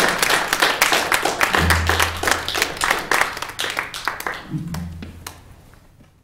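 Audience applauding, with a few low thuds under the clapping. The applause thins and fades out near the end.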